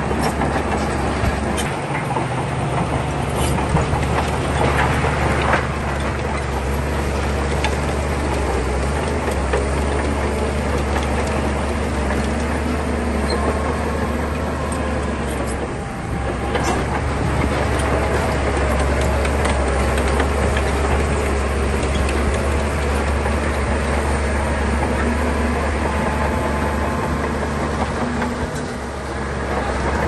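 Bulldozer's diesel engine running steadily under load, with a metallic clatter over the drone; it eases briefly about halfway through and again near the end.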